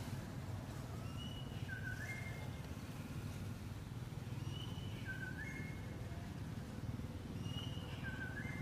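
A bird repeating a short three-note whistled phrase about every three seconds, over a steady low rumble.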